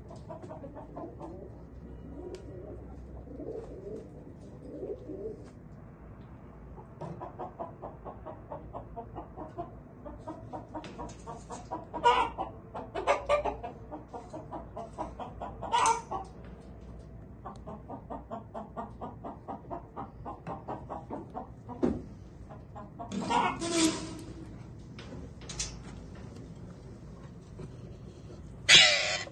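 Indian ringneck parakeets calling in an aviary: a fast, rhythmic chattering through the middle, broken by several short, loud screeches.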